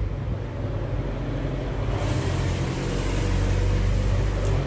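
A steady low engine-like drone, with a rushing hiss that builds from about halfway through.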